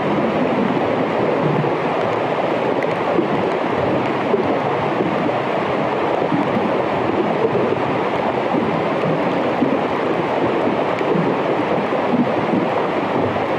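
Underwater hydrophone recording of melting glacier ice in an Arctic fjord: a steady, dense crackling hiss as trapped air escapes from the ice.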